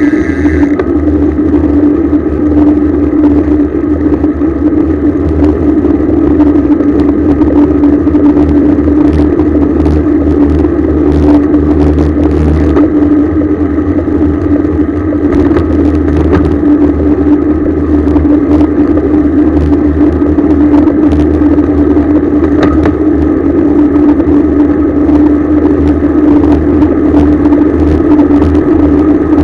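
Steady riding noise from a road bicycle at speed: wind rush and tyre rumble with a constant low hum and scattered light rattles.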